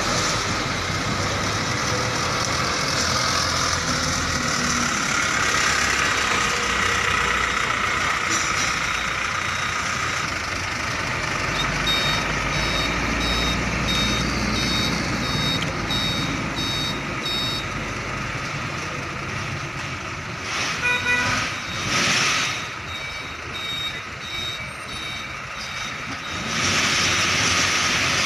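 Hino container truck's diesel engine running as the rig manoeuvres. Around the middle, a reversing alarm beeps about twice a second for several seconds. A little later there is a quick run of beeps and a brief burst of noise.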